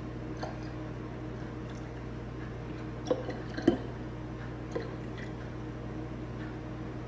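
Liquor being poured from a bottle through a plastic funnel into a glass wine bottle, a soft steady trickle. A few light clicks and knocks over it, the sharpest about halfway through.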